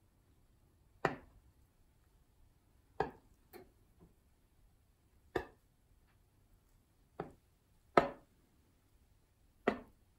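Metal table knife clinking against the bottom and sides of a glass baking dish while swirling through batter: about seven sharp taps at uneven intervals, the loudest about eight seconds in.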